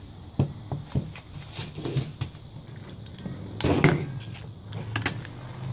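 Masking tape and the protective paper backing being peeled off a clear acrylic sheet: scattered crackles and tearing, loudest about three and a half to four seconds in.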